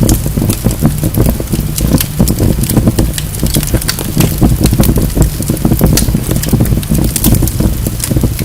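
Wood fire burning in a fireplace: a steady low rumble of flames with many sharp, irregular crackles and pops from the logs.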